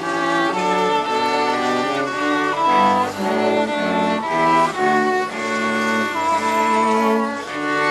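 A small street ensemble of cello, violins and trumpet playing a melody in overlapping held notes, the violin line singing with vibrato over the cello.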